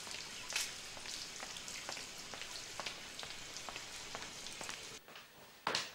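Water splashing and trickling in a courtyard fountain: a steady hiss scattered with small drip-like ticks, which cuts off about five seconds in.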